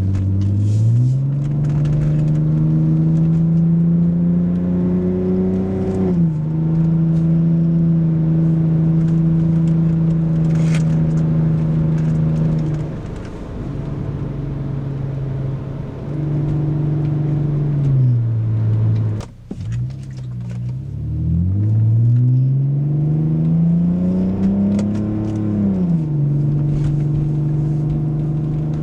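BMW E46 Touring engine and muffler-delete exhaust, heard from inside the cabin while driving. The engine note climbs under acceleration, drops sharply at a gear change about six seconds in, holds steady while cruising, falls away with a brief cut-out a little past the middle, then climbs again to another shift near the end.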